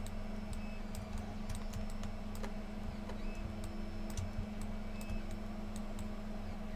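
Typing on a computer keyboard: irregular clicks of the keys over a steady low hum.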